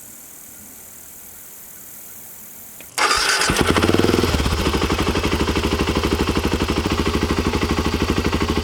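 Motorcycle engine started about three seconds in: a brief crank, then it catches, rises and settles into a steady idle with an even rapid beat. Before that only a faint steady hiss.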